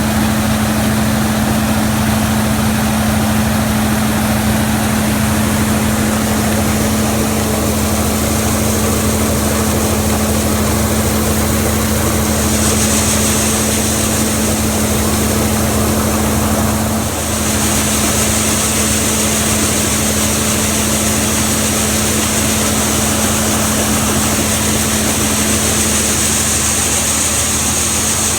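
Large farm machine's diesel engine running steadily under harvest work, with a constant hum and low rumble; a high hiss comes in about halfway through.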